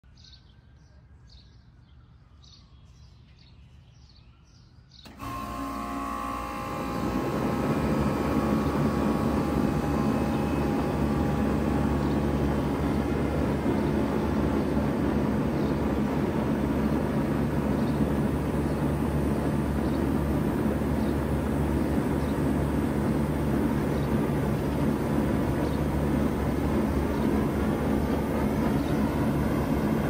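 1995 Bard 3-ton wall-hung heat pump starting up in cooling mode. About five seconds in it kicks on suddenly with a steady hum, the noise swells over the next two seconds as the fan comes up to speed, and it then runs steadily. Birds chirp faintly before it starts.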